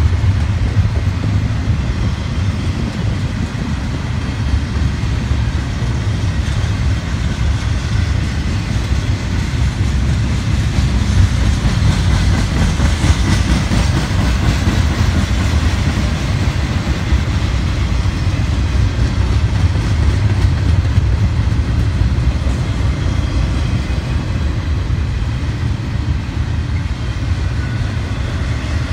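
Double-stack intermodal freight train's loaded well cars rolling past: the steady, low rumble of steel wheels on the rails.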